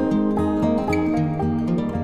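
Instrumental background music led by plucked strings, with a quick, steady run of notes over a bass line.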